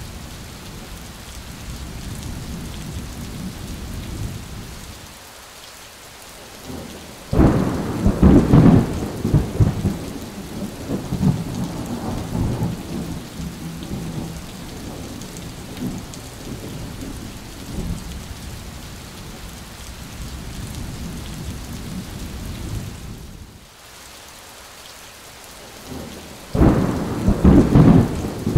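Rain falling steadily, broken by two loud claps of thunder that rumble on for several seconds: one about seven seconds in, the other near the end.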